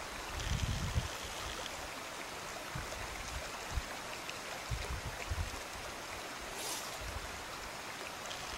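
A brook running with a steady rushing hiss, with a few short low thumps.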